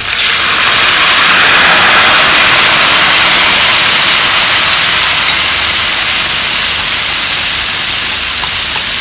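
Fish-sauce marinade poured into hot oil around fried fish steaks in a wok, setting off a loud, sudden hissing sizzle that eases slowly as the liquid boils.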